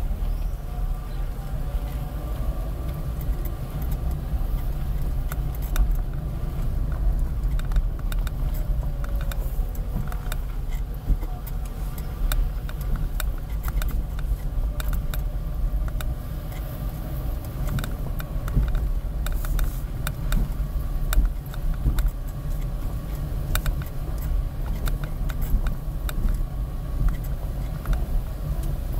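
Car running at low speed, heard from inside the cabin: a steady low rumble of engine and tyres, with frequent small rattles and clicks as it drives over patched, potholed asphalt.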